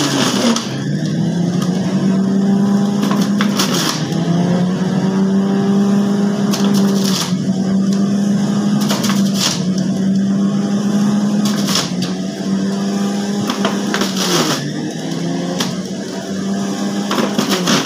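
Electric juicer's motor running with a steady whine that sags in pitch and recovers several times as chunks of beetroot and orange are pushed down the feed chute, with short crunching as the spinning blade grates them.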